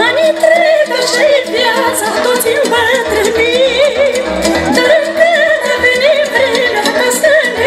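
Amplified live band music with an ornamented, wavering lead melody, probably sung, over sustained accompaniment and bass.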